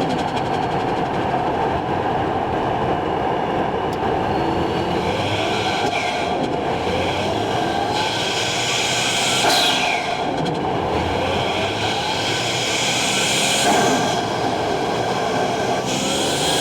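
Toyota Chaser's turbocharged 1JZ-GTE straight-six being revved. The turbo whistle rises as boost builds, then a hissing blow-off and turbo flutter falls away each time the throttle closes, about four times.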